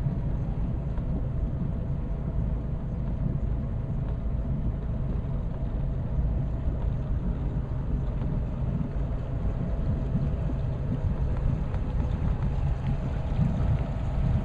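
Motorboat engine running steadily under way, a low, even drone.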